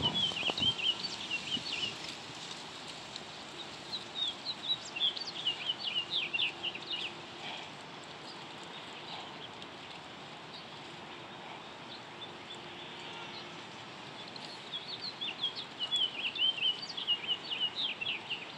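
A small songbird singing: rapid high chirps in three bouts, at the start, from about four to seven and a half seconds in, and from about fifteen seconds to the end, over steady outdoor background noise.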